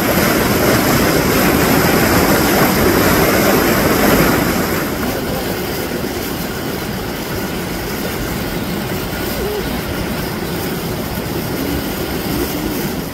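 Floodwater pouring through the open sluice gates of a river weir: a steady roar of rushing water, a little louder for the first four seconds.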